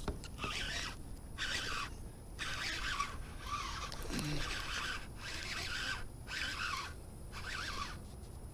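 Baitcasting reel being cranked in short spurts, a whirring of the reel's gears about half a second to a second at a time with brief pauses between, eight or so times in a row.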